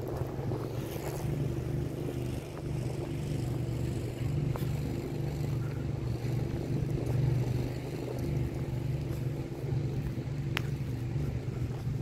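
Steady low engine hum, with one sharp click about ten and a half seconds in.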